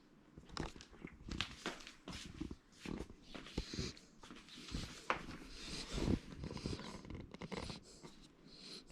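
Labrador retriever puppy snuffling and breathing noisily, among irregular small rustles and knocks.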